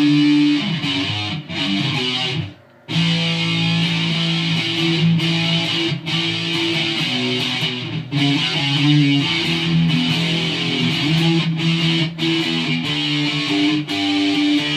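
Electric guitar played with the fingers rather than a pick through an amp, on the front pickup with the coil tap engaged: held notes and chords changing every second or so, with a short break about two and a half seconds in.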